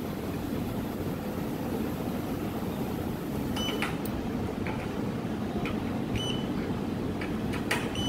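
Steady mechanical hum of an OCA laminating machine, while its touchscreen gives three short beeps as buttons are pressed during a test of the newly fitted external vacuum pump. Right at the end comes a sharp click, the loudest moment, as the pump is switched on.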